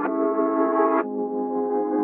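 Ambient background music of sustained chords, the chord changing about a second in.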